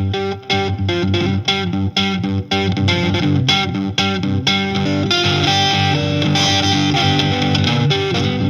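Rock music with electric guitar and bass: short choppy chords for about the first five seconds, then held, ringing chords.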